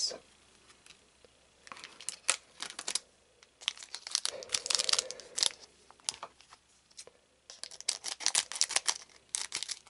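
Foil trading-card booster pack wrapper crinkling as it is handled and torn open. After about a second and a half of quiet, the crackling comes in three spells.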